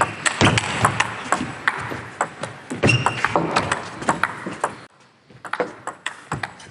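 Table tennis rally: the ball clicking sharply off the rackets and the table in quick alternation. The sound briefly drops away about five seconds in, then the clicks resume.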